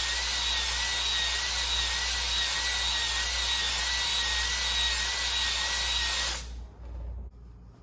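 Cordless drill spinning an oiled ball hone inside an engine cylinder bore: a steady scraping whir with a faint motor whine, stopping about six and a half seconds in. The hone is scuffing the cylinder wall to a crosshatch finish ahead of new piston rings.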